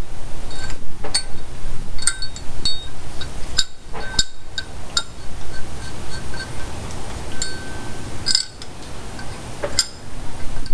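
Metal tools and bolts clinking as the cam retaining plate bolts are fitted and tightened with a socket and ratchet: scattered sharp metallic clinks, some ringing briefly, over a steady low rumble.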